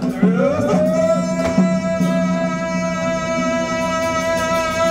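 Music: one long held note that slides up into pitch near the start and then holds steady for several seconds, over a steady lower accompaniment with light percussion.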